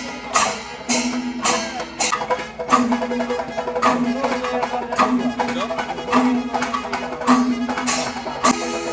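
Traditional percussion music: sharp drum strikes at a fairly regular beat over steady held tones.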